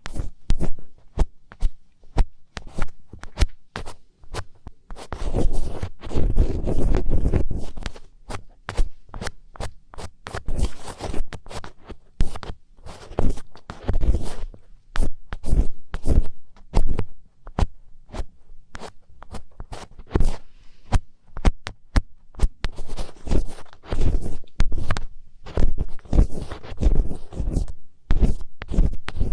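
Close-miked ASMR scratching: quick, irregular scraping and clicking strokes against the microphone, coming in busy clusters with short pauses between them.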